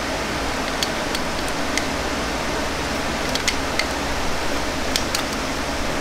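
A small power tool's motor running steadily, with scattered sharp ticks.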